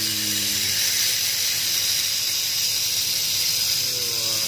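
Tamiya Mini 4WD's small electric motor running steadily, spinning the drivetrain and wheels with a high, even whirring hiss.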